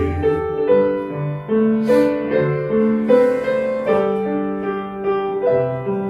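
A keyboard playing slow, sustained chords, the chords changing every half-second to second.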